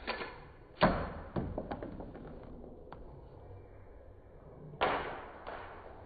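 A series of sharp clacks and knocks from a pistol being worked to clear a double-feed malfunction, each with a short ringing tail. The loudest comes about a second in, followed by a few lighter clicks, and another strong clack comes near the end.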